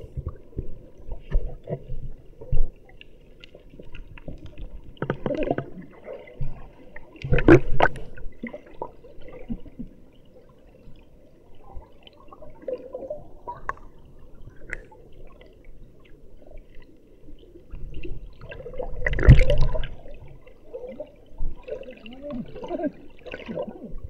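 Muffled underwater sound through an action camera's waterproof case held below the surface: low gurgling and rumbling, with louder rushes of water about seven seconds in and again around nineteen seconds.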